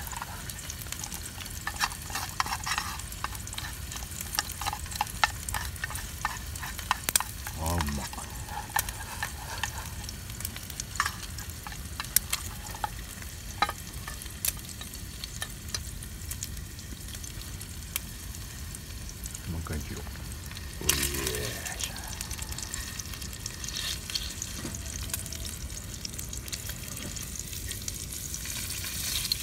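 Food sizzling in a frying pan, with scattered clicks and scrapes of a utensil stirring it. Twice, about 8 and 21 seconds in, a short falling sweep sounds.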